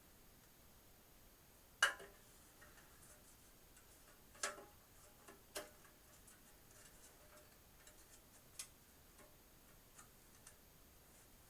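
Scattered clicks and knocks of toolless hard-drive caddies being handled and pushed into a server case's drive bays: four sharper clicks, the loudest about two seconds in, with fainter ticks between.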